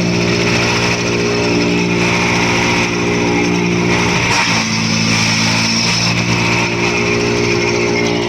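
Wood chipper's engine running steadily, its pitch dipping briefly about four seconds in.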